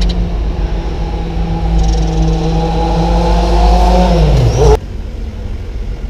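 A motor running steadily with a loud, even hum, then sagging in pitch as it winds down and stopping abruptly near the end.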